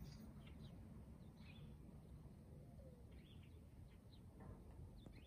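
Faint outdoor ambience: a low steady background rumble with scattered short, high bird chirps, about half a dozen spread over the few seconds.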